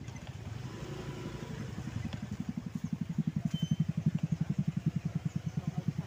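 Small motorcycle engine running at low speed, a fast, even low pulsing that grows louder over the first few seconds and then holds steady.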